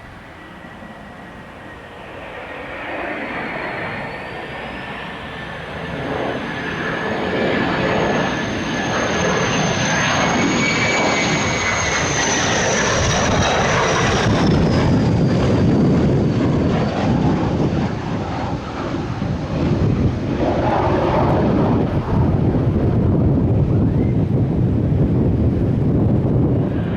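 F-16 fighter jet engine growing louder, with a high whine that glides up and then down. In the second half it turns into a loud, steady rumble.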